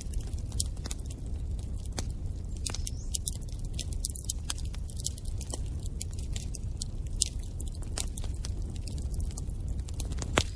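Wood fire burning in a fireplace: a steady low rumble of the flames with frequent irregular sharp crackles and pops from the burning logs, a louder pop near the end.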